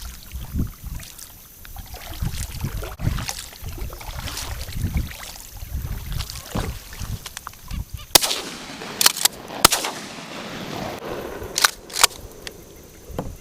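Kayak being paddled: low uneven sloshes and hull knocks, then several sharp clicks, some in close pairs, in the second half.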